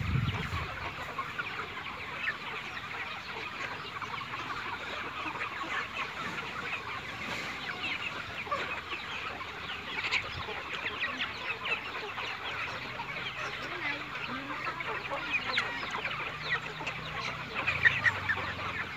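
A large flock of chickens clucking and chirping all together, a dense, continuous chatter of many short calls.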